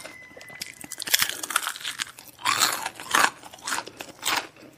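Crunching and chewing of crispy fried chicken: a string of sharp, crisp crackles, loudest between about two and a half and three and a half seconds in.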